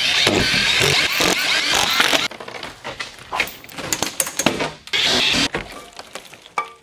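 Cordless drill running overhead, backing screws out of a plywood ceiling panel; it stops about two seconds in, then runs again briefly among knocks and scrapes as the panel is pulled free.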